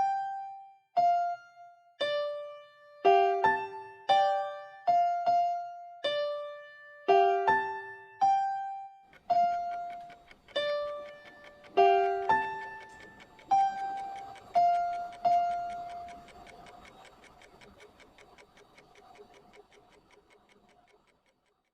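Background music: a slow melody of single, ringing keyboard notes, each dying away. About nine seconds in, a soft hissy texture joins. From about sixteen seconds the music fades out.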